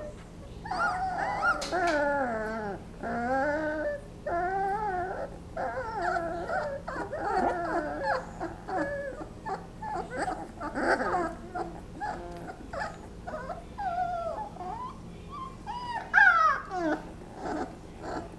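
Twenty-day-old basset hound puppies whimpering and whining in their sleep: a long string of wavering, high-pitched calls, some sliding down in pitch, with the loudest about sixteen seconds in.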